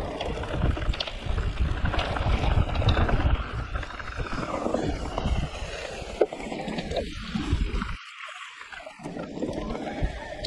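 Wind buffeting the microphone and tyre and frame rumble from an e-mountain bike riding down a dirt forest trail, with small knocks and rattles from the bumps. The rumble briefly drops away about eight seconds in, then returns.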